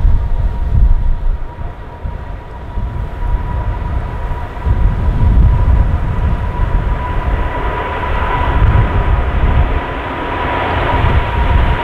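Jet airliner's engines at take-off power: a steady whine over a rushing sound that grows louder over the last few seconds. Strong gusty wind buffets the microphone throughout.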